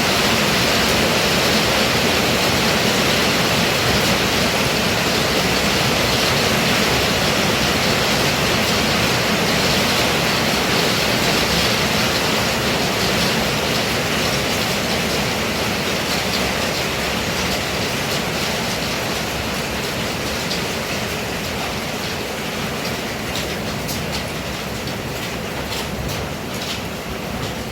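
Heavy pouring rain making a steady dense hiss. It eases gradually, and separate drops and splashes stand out more near the end.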